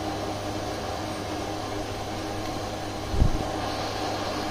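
Steady low hum of an electric machine motor running in a lathe workshop, with one short knock about three seconds in.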